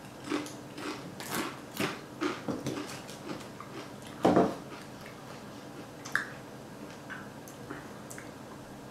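Biting and crunching a chip covered in hot sauce: about a dozen quick crunches over the first four seconds, then a louder single mouth sound about four seconds in. A few faint chewing clicks follow.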